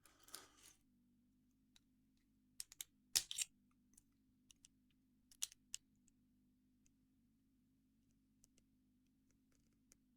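Sparse small clicks and scrapes of tools working at the C-clip on a lock, during an attempt to pry it off; a short cluster of clicks about three seconds in is the loudest, with a few fainter ticks later.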